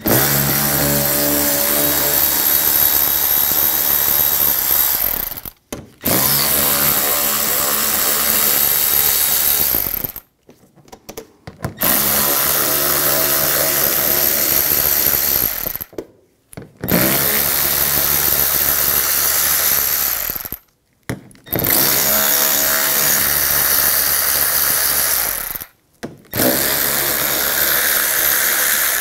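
Cordless electric ratchet spinning a 7mm socket to back out the inner fender liner screws. The motor runs in about six steady bursts of four to five seconds each, one screw after another, with short pauses between.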